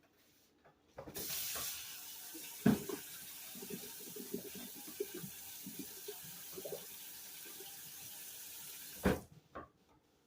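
A tap runs into a sink for about eight seconds, with a sharp knock about three seconds in and small clatters throughout. It ends with a louder knock as the water stops.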